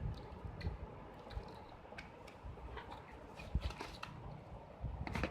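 Packaging being handled as the tablet's accessory box is opened: scattered light clicks and rustles, with a couple of sharper ticks near the middle and the end.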